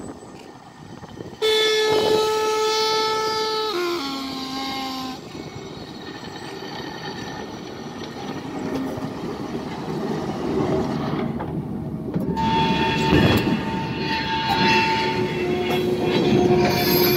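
Vintage Italian State Railways (FS) electric locomotive sounding its two-tone horn, a higher note held about two seconds and then a lower note for about a second. It then rolls past with its freight wagons, the running noise and wheel clatter growing louder, and the wheels begin to squeal on the track near the end.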